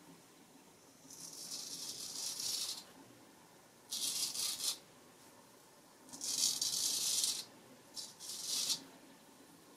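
Straight razor scraping through lathered beard stubble on the neck in five strokes, the first the longest and the last two quick ones close together.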